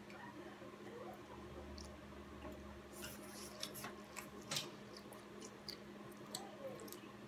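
A young child eating noodles: faint chewing and slurping, with scattered short clicks and mouth smacks, busiest in the middle, over a steady low hum.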